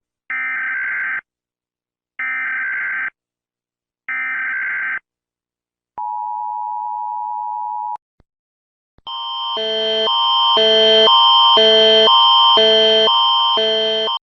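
Emergency Alert System tones: three short bursts of data header tones, each just under a second with gaps between, then a steady two-tone attention signal lasting about two seconds. After a click a different alert sound begins, a rhythmic pattern of alternating tone chords, repeating about twice a second and swelling in loudness.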